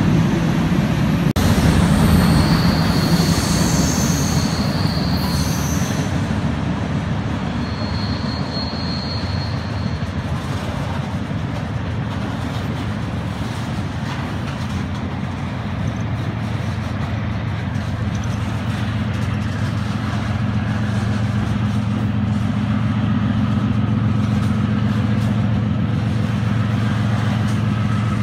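Freight train of covered grain hopper cars rolling past with a steady rumble of steel wheels on rail. Brief thin, high wheel squeals come a few seconds in, and a steady low hum grows underneath in the second half.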